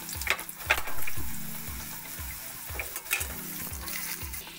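Boiled potato chunks sizzling as they fry in hot mustard oil in a metal pan. A metal spatula scrapes and clinks against the pan a few times as they are stirred, most sharply near the start and about three seconds in.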